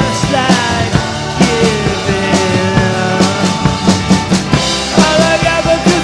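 Rock music with a steady drum beat and a lead guitar line of sliding, bent notes, with no vocals.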